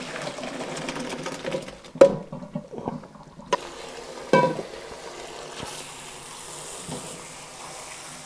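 Parboiled rice being drained: hot cooking water poured from a pot into a colander, a rushing pour with sharp ringing metal clanks about two and four and a half seconds in, then a softer steady hiss of water draining.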